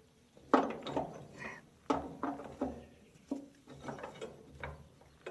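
Metal clanks and clinks as a tension spring is worked by hand onto the baler's chain tensioner: about seven sharp knocks, roughly a second apart, each ringing briefly.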